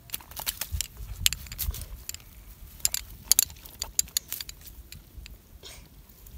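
Irregular sharp clicks, slaps and rustling as a caught fish is handled on a nylon net and unhooked, with a few low thumps in the first two seconds.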